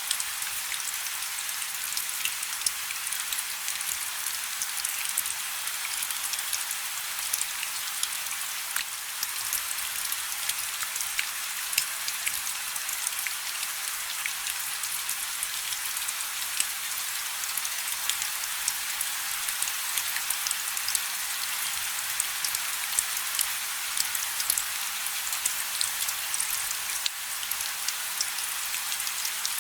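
Steady rain with many individual drops ticking sharply on a hard surface over a constant hiss.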